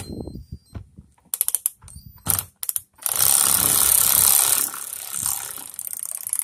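Hand ratchet wrench clicking as it backs out a 10 mm bolt. It goes in short runs of clicks at first, then a long, fast, loud run of clicks from about three seconds in, easing off, and the sound cuts off abruptly near the end.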